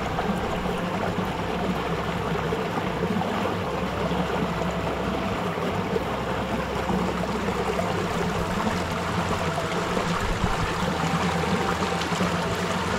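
Shallow stream running over rocks, a steady rush of water.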